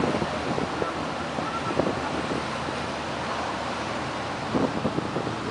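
Wind buffeting the microphone, a steady rushing noise with small irregular gusts.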